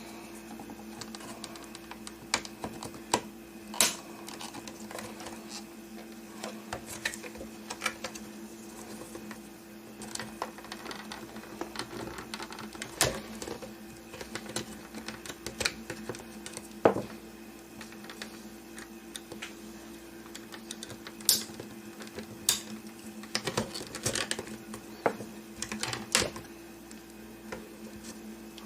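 Irregular plastic clicks, taps and scrapes of a pick working at the clips of a Mazda6 overhead console (map light housing), over a steady hum.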